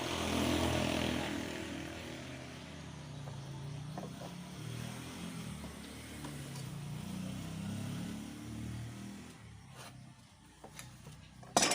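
Motor vehicle engine running, its pitch rising and falling, fading away near the end. A sharp knock at the very end.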